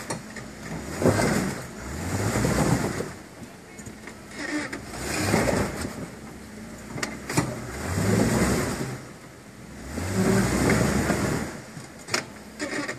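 Jeep Wrangler's engine revving in repeated surges, about five times, each rising and falling off again, as it strains to crawl over a rock with its cross member hung up on it.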